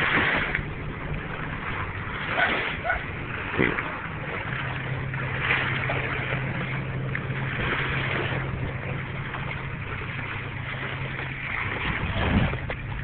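A motor runs steadily as a low hum under a constant noisy hiss, with a few short, louder sounds scattered through.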